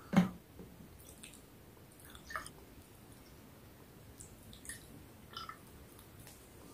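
Faint, scattered clicks and soft squishy sounds of food being handled at the table, with one louder short sound just after the start.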